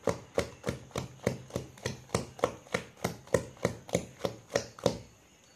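A hand beating thick idli batter of ground rice and urad dal in a stainless steel vessel, mixing in the salt: a steady rhythm of wet slaps, about three a second, that stops about five seconds in.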